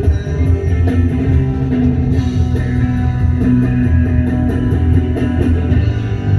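Live rock band playing: electric guitar over bass, with a steady high tick about four times a second.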